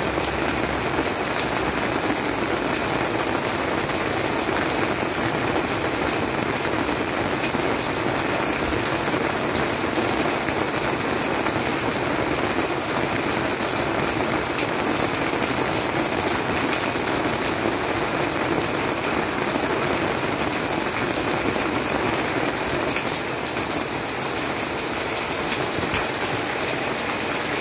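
Steady, heavy rainy-season rain falling, a dense even patter of drops.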